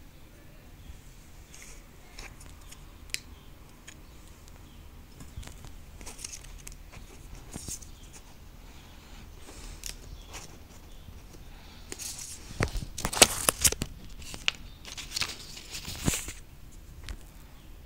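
Paper and thin card being handled: a small folded instruction leaflet and white packaging inserts rustling, crinkling and tapping, with a run of louder crinkles and taps between about twelve and sixteen seconds in.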